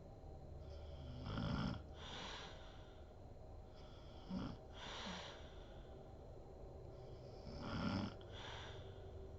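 A sleeping woman snoring: three low snores about three seconds apart, each followed by a breathy rush of air.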